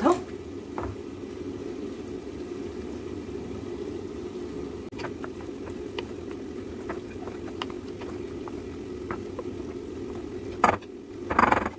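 Wooden spoon stirring vermicelli and fried minced meat in a glass bowl, with faint scrapes and light taps on the glass over a steady low hum; a louder knock near the end.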